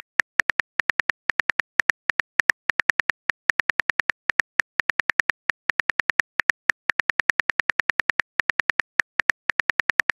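Phone keyboard typing sound effect: a quick run of identical short key clicks, about five or six a second with small uneven gaps, as a text message is typed out letter by letter.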